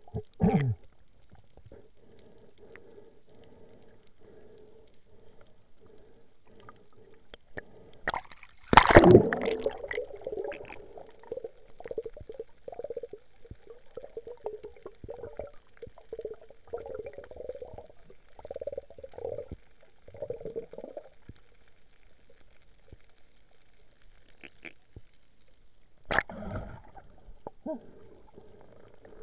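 Water gurgling and bubbling around an underwater camera over a steady hum, with a loud sudden surge about nine seconds in, choppy sloshing for several seconds after, and another short burst near the end.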